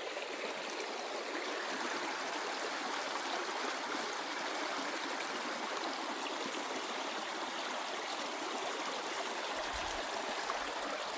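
Small creek running over rocks, a steady hiss of flowing water, with a brief low rumble near the end.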